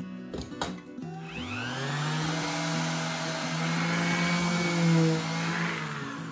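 Electric orbital sander, its dust port hooked to a vacuum cleaner hose, spinning up with a rising whine and running steadily for several seconds before winding down near the end. A few handling knocks come in the first second.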